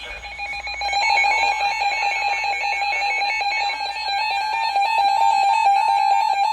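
Emergency alert tones ahead of a National Weather Service warning broadcast: a harsh electronic warble that flips rapidly between two close pitches. It starts about a second in.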